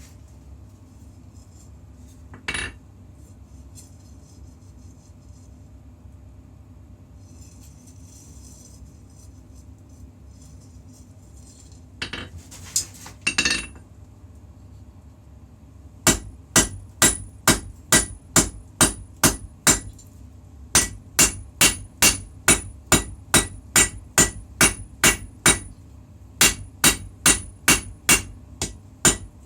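Hand hammer striking hot steel of a puukko blade on an anvil: after a few scattered clanks, fast even blows about three a second start about halfway through and run in bursts with short pauses, each with a bright ring. A steady low hum sits under it all.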